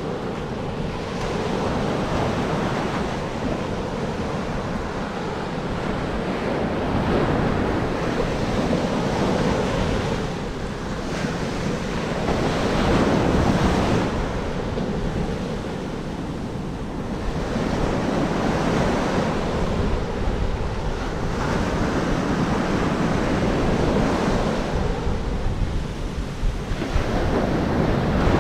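Ocean waves breaking and washing up the shore, swelling and ebbing every few seconds, with wind buffeting the microphone.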